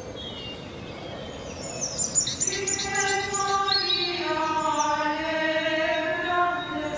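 Birds chirping in quick, high, repeated calls, then from about two and a half seconds in, women's voices singing a slow religious chant in long held notes that step from pitch to pitch.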